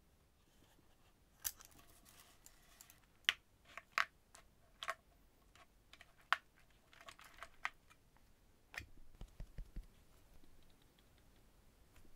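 Small wooden alphabet rubber stamps clicking against their wooden box and metal tweezers as letters are picked out, single sharp clicks about a second apart with light rustling between. Near the end comes a quick run of soft taps and thuds as the stamps are pressed onto paper.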